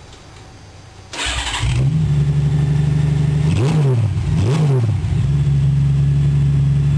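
Honda GL1800 Gold Wing's flat-six engine started with the exhaust removed, catching about a second in and running open and loud. It is revved twice in quick succession, then settles to a steady idle.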